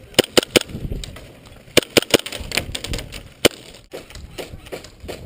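Airsoft guns firing sharp cracking shots in short bursts: three quick shots close together, then three more about two seconds in, and a single shot near the end, over rustling movement.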